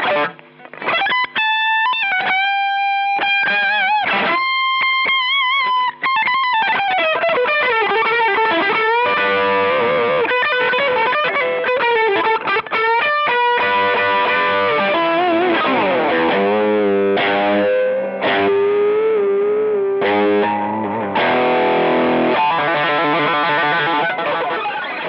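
Electric guitar played through a Boss SD-1 Super Overdrive pedal, a mid-forward overdrive. It plays sustained single-note lead lines with vibrato and bends, then overdriven chords with a slide down about halfway through.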